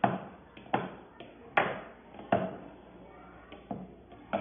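Wooden spoon knocking down into a plastic mixing bowl, a series of sharp knocks about a second apart, pounding as if grinding salt and pepper.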